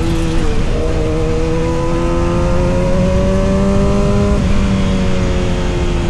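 Kawasaki ZX-6R's inline-four engine pulling under throttle, its pitch climbing steadily for a few seconds, then stepping down about four seconds in and slowly falling away.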